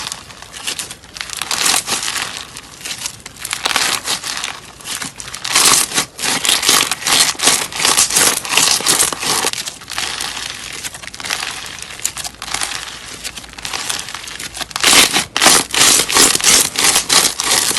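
Slime being squeezed and pressed by hand, giving off dense crackling and crinkling that swells and eases in irregular waves.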